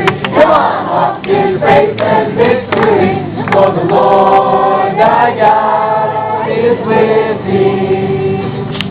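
A group of campers singing a worship song together in unison. Sharp percussive beats keep time for the first few seconds, then the voices hold long sustained notes to close the song.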